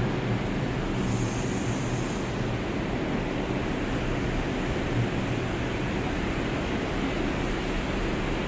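Subway station ambience: the low rumble of a departing subway train fading out over the first couple of seconds, under a steady noisy hiss. A brief high hiss sounds about a second in.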